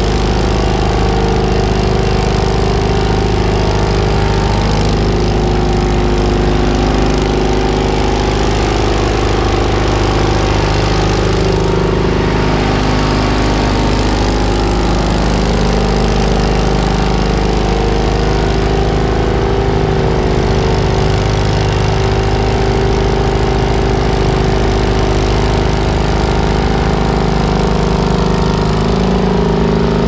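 Gasoline engine of a 1987 Maulding Model 680 asphalt paver running steadily, its pitch wavering only slightly.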